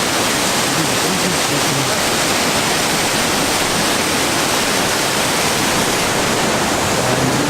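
Rushing mountain water: a steady, loud roar with no breaks.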